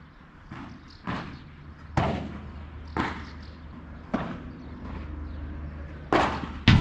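Padel rally: the ball is struck with solid padel rackets and bounces on the court, with sharp hits about once a second. The loudest two come close together near the end.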